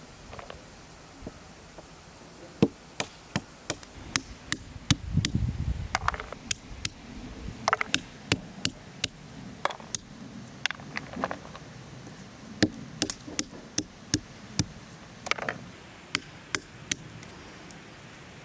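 Walnuts being cracked open one at a time on a flat stone: a string of sharp knocks and shell cracks at an irregular pace of about one or two a second.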